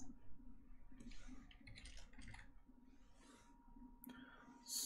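Faint, scattered clicks of a computer mouse and keyboard keys as a value is typed into a field, over a low steady hum.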